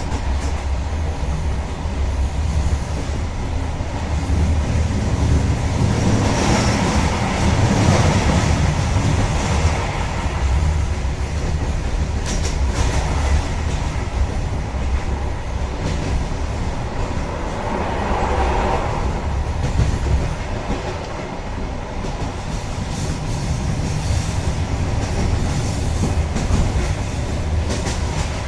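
InterCity passenger train running on the rails: a steady deep rumble with the clickety-clack of wheels over rail joints, swelling in places as it goes.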